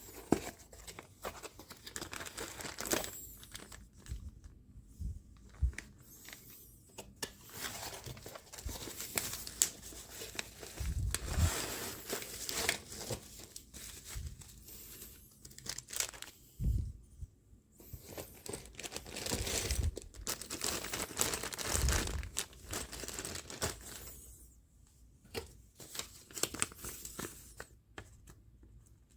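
Packaging being handled: irregular crinkling and tearing, in stretches with short pauses, with a few dull low knocks.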